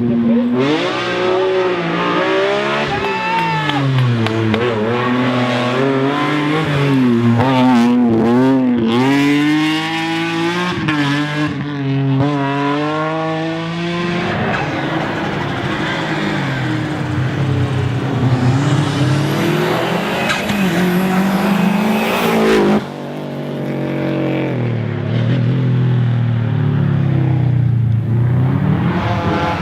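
Race car engines revving hard, the pitch climbing and falling again and again through gear changes and braking, with a sudden break about three quarters of the way through.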